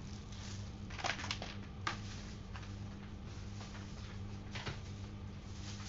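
Quiet kitchen room tone: a steady low hum, with a few faint clicks and rustles of handling, a couple between one and two seconds in and one more later.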